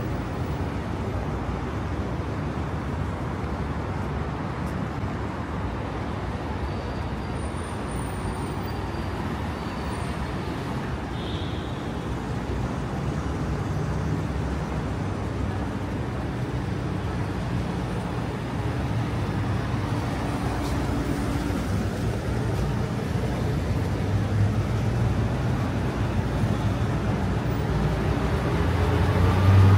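Steady street traffic noise from passing cars. Near the end a vehicle engine grows louder, passing close by.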